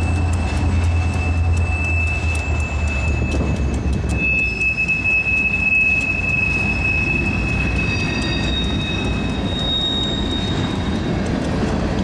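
Freight train passing close by. Two diesel locomotives rumble past in the first three seconds, with wheels clicking over the rails, then the freight cars roll by with a steady high-pitched wheel squeal that is joined by higher squeals after about eight seconds.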